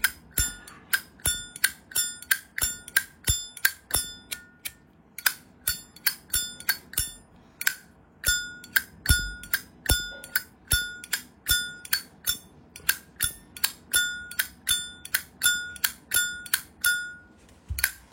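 Zippo lighter lid being flicked open and snapped shut over and over, about two sharp metallic clacks a second, each with a bright ring. The cam spring is very strong and gives the lighter its crisp, ringing click.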